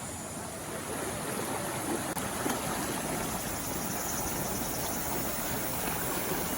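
River water rushing over rocks: a steady rush of flowing water.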